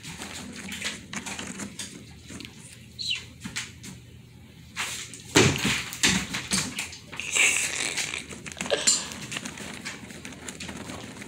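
German Shepherd's claws clicking and scuffling on a hardwood floor as the dog moves and turns, with a sharp knock about five seconds in.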